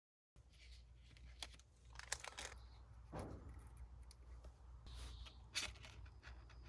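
Faint rustling and scattered small clicks from small materials being handled, over a low steady hum.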